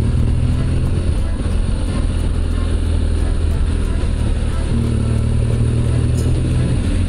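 Motorcycle engine running as the bike rides along a winding road, heard from a camera mounted on the bike, with wind and road noise over it. The engine note shifts slightly with the throttle about a second in and again near five seconds.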